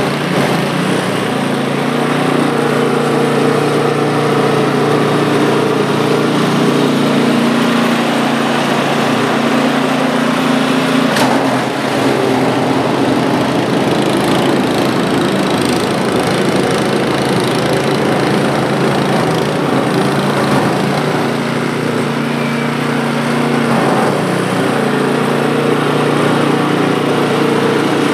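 Poulan Pro PP521ES snowblower's 136cc four-stroke single-cylinder engine running steadily under load while its single-stage auger throws snow. Its even engine note roughens for several seconds in the middle, then steadies again.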